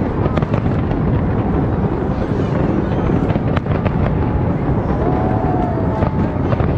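Large fireworks display going off: a continuous run of deep booms with several sharp cracks among them.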